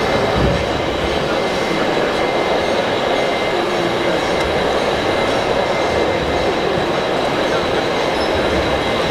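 Steady din of a crowded exhibition hall mixed with radio-controlled model construction machines at work, a 1:14-scale hydraulic excavator and a model tractor-trailer, with a faint steady high whine.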